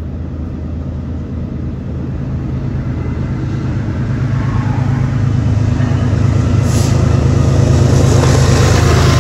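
Two diesel locomotives at the head of a freight train approaching, their engines' low drone growing steadily louder. Rumble and wheel noise on the rails build up in the second half as they come close.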